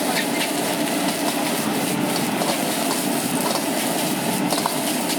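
Wok cooking at a street stall: a steady roar from the gas wok burner, with faint scrapes and clinks of a metal spatula in the wok scattered through it.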